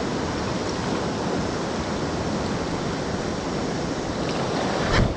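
Steady rush of a fast-flowing river current over rapids, with a single brief knock about five seconds in.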